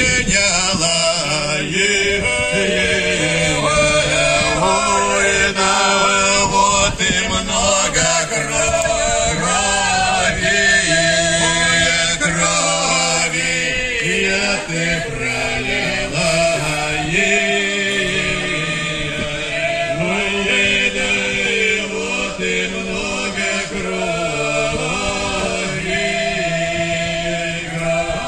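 Background music: a male choir singing a slow, chant-like song in long held notes over a sustained low note.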